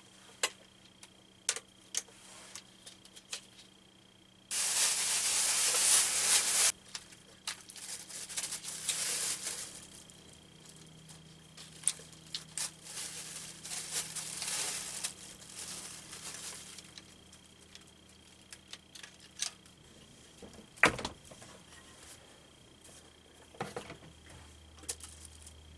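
Clicks and rubbing of hands working among rubber spark plug wires and hoses on a Chevy 7.4 L (454) V8, with a loud hiss lasting about two seconds that starts about four seconds in, softer swells of hiss later, and a sharp knock near the end.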